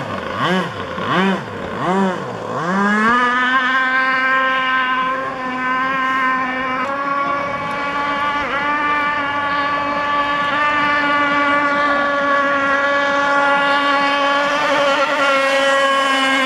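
Radio-controlled racing powerboat's engine, its revs dipping and climbing four times in quick succession over the first few seconds, then held at a steady high pitch as the boat runs flat out.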